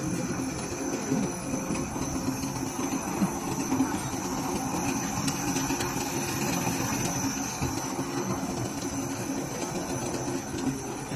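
PTFE film and nonwoven fabric laminating machine running steadily: a dense mechanical hum with a thin high tone over it and a few light clicks.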